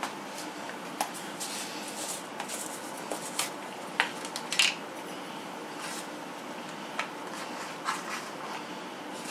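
Scattered light clicks and taps of a small jar of baking powder being handled and its lid taken off, over a steady faint background hiss; the sharpest clicks come about four seconds in.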